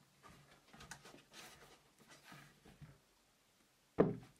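Faint handling noises of a guitar neck being set into a wooden fret-slotting jig: soft scuffs and light taps of wood against wood, then one sharp knock about four seconds in.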